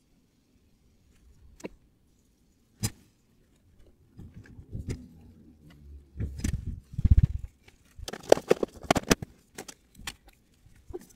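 Scattered sharp clicks and knocks, with low thuds a few seconds in and a busy run of rapid clicks in the second half, like things being handled, played back sped up.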